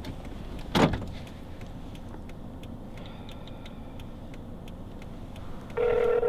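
Low steady hum inside a parked car, with a single sharp thump about a second in and a few faint clicks of phone keys in the middle. Near the end a steady telephone ringback tone starts as a call is placed.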